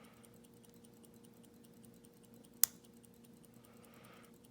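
A single sharp click from a Master Lock 401 Loto padlock being picked, about two and a half seconds in, over a faint steady hum and fast, faint ticking; it comes as a pin sets or the plug counter-rotates, which the picker takes for having overset a pin.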